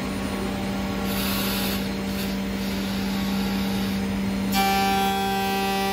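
1998 Anderson Stratos CNC router machining a solid wood door: a steady hum with a short burst of hiss about a second in. Over halfway through, a higher whine made of several steady tones sets in suddenly.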